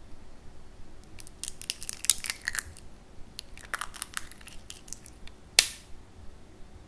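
Hardened sugar syrup for tanghulu crackling and snapping as it is crushed in the fingers: two clusters of crisp brittle clicks, then one louder sharp snap near the end. The brittle crack shows the syrup has set hard at once in cold water, the sign that it is cooked enough.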